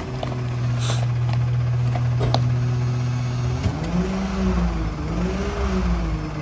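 McNeilus rear-loader garbage truck running at idle. About three and a half seconds in, the engine throttles up with a wavering pitch as the hydraulic packer blade cycles and compacts trash in the hopper. There are a few sharp knocks and clatters of the load in the first half.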